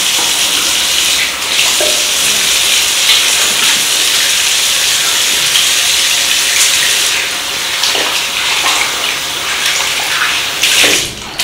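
Bathroom tap running steadily into a sink while hands are washed under it, rinsing off body oil.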